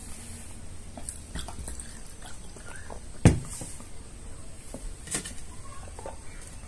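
Drinking water from a plastic bottle, with small swallowing and mouth sounds, and one sharp knock a little over three seconds in.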